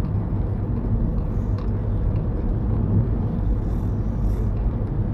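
Car driving at steady speed, heard from inside the cabin: a constant low rumble of engine and road noise.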